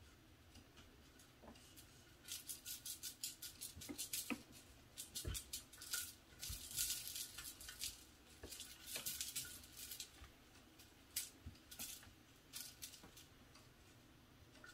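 A kitten batting at a feather toy on a metal wire spring: quick irregular clicking, rattling and scratching in bursts, busiest in the middle.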